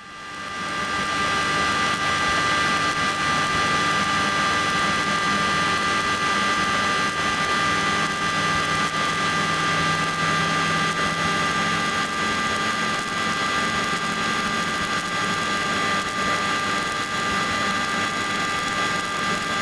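Small helicopter's engine and rotor running steadily, a loud even drone with a high steady whine on top; it rises in within the first second.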